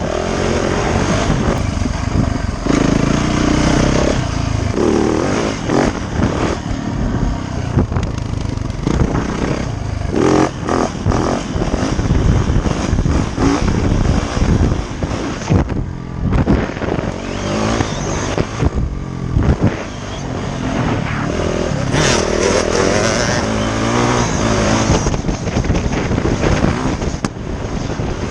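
Dirt bike engine running and revving as it is ridden, its pitch rising and falling, under heavy gusty wind noise on the microphone.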